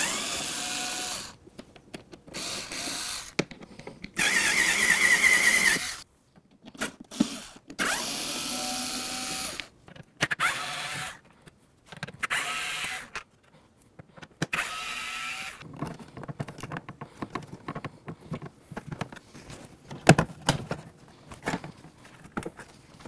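Handheld cordless electric screwdriver running in about seven short bursts as it backs out Torx screws. After that come scattered clicks and light clatter of screws and parts being handled.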